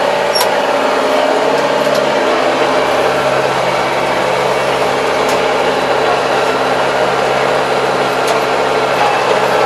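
Diesel engine of a 75 hp Kubota tractor running steadily, heard from inside the closed cab.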